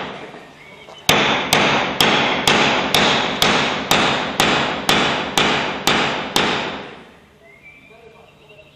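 A dozen sharp knocks in a row, evenly spaced at about two a second. Each one rings on briefly in the reverberant hall, and the knocking stops after about six seconds.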